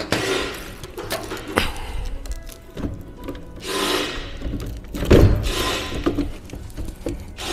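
Knocks, clicks and scraping of a metal rod levering up the small metal mounting tabs on a MaxxFan roof vent's frame, with one heavy thump about five seconds in. Faint background music underneath.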